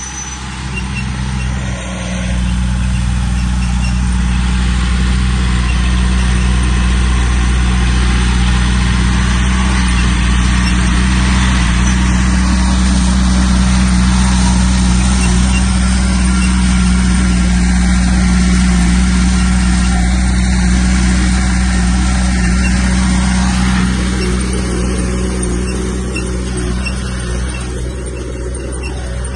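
Heavy earthmoving machinery's diesel engine running steadily under load, with a low even hum. It grows a little louder about two seconds in and eases off somewhat near the end.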